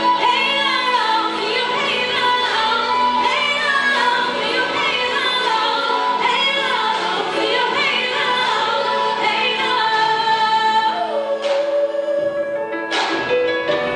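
Music with a woman singing a wavering, ornamented melody over accompaniment.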